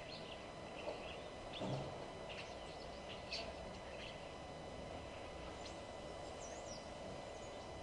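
Several wild birds chirping and calling in short, scattered phrases over a steady background hiss, with a brief low sound about a second and a half in.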